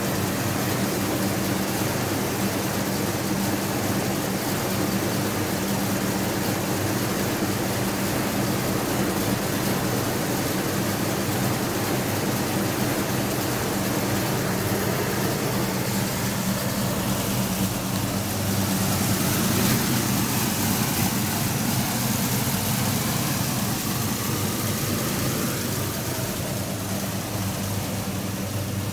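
1969 Pontiac GTO Judge's 400 V8 idling steadily.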